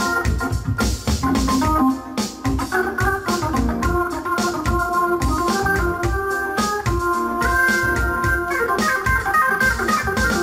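Hammond A-100 organ playing chords that change every second or so, over a steady beat.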